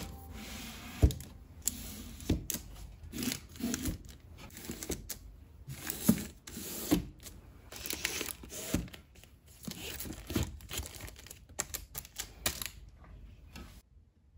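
Shrink-wrapped manga volumes being handled and set onto a bookshelf: irregular knocks and taps of books against the shelf and each other, with the crinkle of their plastic wrap. It dies down to faint rustling about a second and a half before the end.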